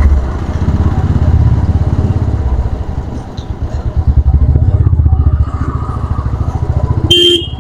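Royal Enfield Classic 350's single-cylinder engine thumping steadily under way, easing off about three seconds in and pulling harder again about a second later. A short, loud beep sounds near the end.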